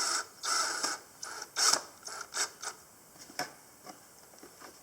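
Cordless drill whirring briefly at the start, then a few separate clicks and short ratcheting rattles from the baler's PTO shaft and its plastic shield as they are turned to check that the new screws clear the shaft.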